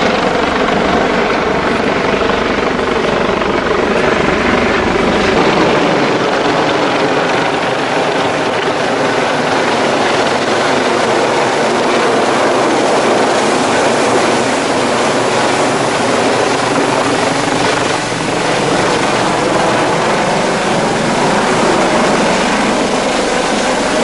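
A large engine running steadily and loudly, with a constant drone of several held pitches over a rushing noise.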